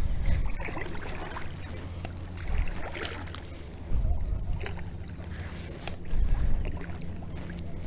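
Kayak paddle strokes dipping and splashing, with water dripping off the blades, swelling about every one and a half to two seconds. Low rumbling on the microphone rises with each stroke.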